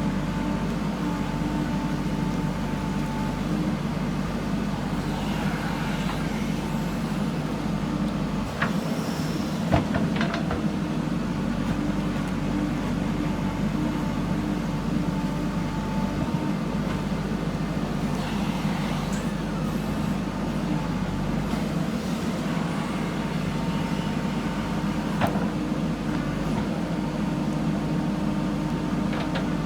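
Backhoe loader's diesel engine running steadily under work, with a few sharp metallic knocks from the machine about nine or ten seconds in and again later.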